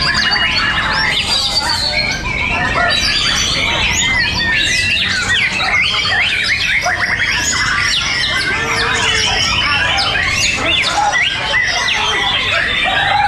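Many white-rumped shamas (murai batu) in contest cages singing at once: a dense, loud, overlapping chorus of rapid whistles, trills and sharp chirps with no break.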